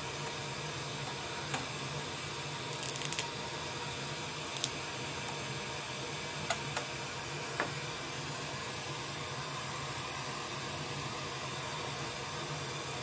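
Steady background hiss, with a few faint light taps and paper rustles from small cut-out newspaper strips being shifted by hand on a plastic-sleeved sheet: a short cluster about three seconds in and single ticks over the next five seconds, then only the hiss.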